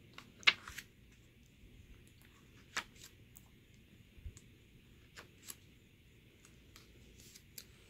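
Glossy pages of an album photobook being turned by hand: short paper flicks and rustles, the sharpest about half a second in, with a few quieter ones spread through the rest.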